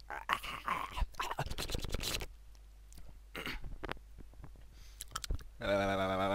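A man reacting to the burn of a hot chili pepper he has just eaten. Ragged breaths and mouth noises run through the first two seconds, with a short puff of breath about halfway. Near the end comes a loud, held groan at a steady pitch.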